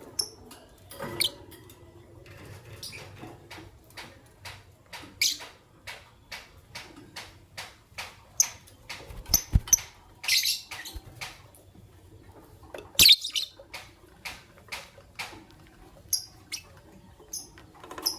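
Fischer's lovebirds giving short, high chirps among many quick clicks and taps, with louder bursts of chirping about ten and thirteen seconds in.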